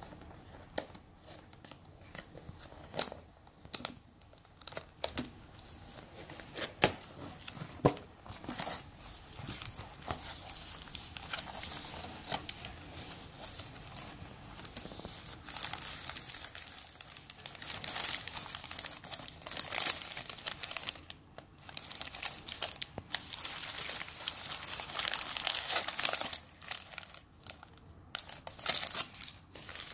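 Hands opening a cardboard gift box, with scattered taps and clicks as the box is handled, then a long stretch of crinkling as the crumpled paper wrappers inside are rustled and lifted out.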